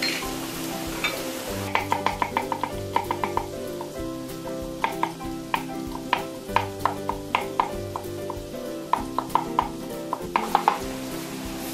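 Onions sizzling in oil in a frying pan for the first second or so. Then a kitchen knife chops garlic cloves on a wooden cutting board, with quick runs of sharp taps and short pauses between them. Soft background music plays underneath.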